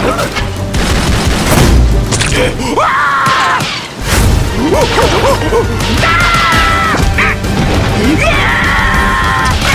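Cartoon sound effects of hailstones and rain pelting down, with repeated hits and crashes, while a larva character lets out several high, wavering cartoon cries, the longest near the end, over background music.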